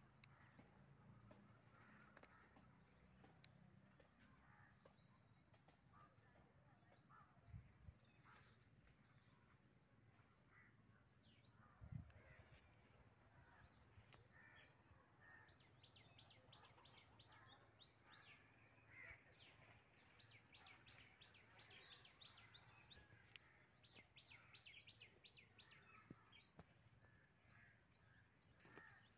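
Faint outdoor ambience with distant birds calling, including a rapid chattering trill of high ticks through the middle. A couple of soft low thumps, the loudest about twelve seconds in.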